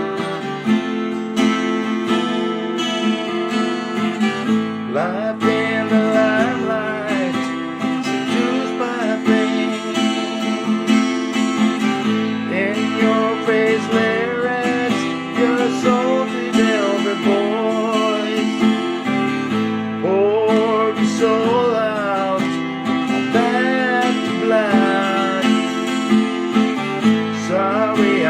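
Acoustic guitar strumming chords as a song's instrumental intro. From about five seconds in, a wavering, sliding melody line plays over the chords.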